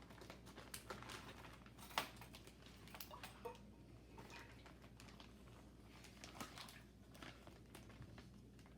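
Faint crinkling of a plastic zip-top bag and small scattered clicks as its zipper is pressed shut, with one sharper click about two seconds in.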